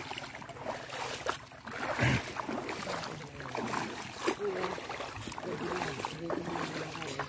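Footsteps wading through shallow seawater, the water sloshing and splashing irregularly with each step.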